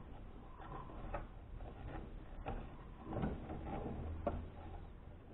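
Faint, irregular plastic clicks and knocks as a stiff, stuck plastic part is worked loose by hand in the opened housing of a Braun 4235 juicer.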